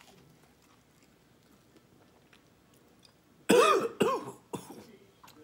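A man coughing hard twice, about half a second apart, then once more, softer. The coughing is set off by the spicy seasoning on the corn he is eating.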